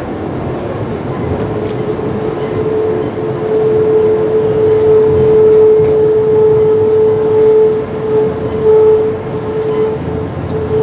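Amtrak Piedmont passenger train rolling with a steady, high-pitched brake squeal over the rumble as it slows into a station stop. The squeal swells in the middle and wavers near the end.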